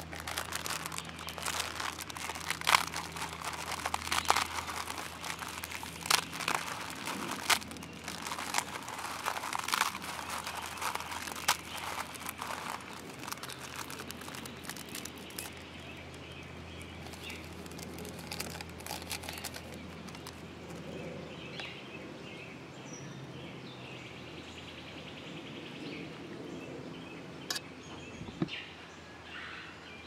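Plastic ramen packet crinkling and crackling as it is opened and the dry noodles are broken up into a plastic container. The crackling is dense for about the first half, then dies down, leaving a few faint bird chirps.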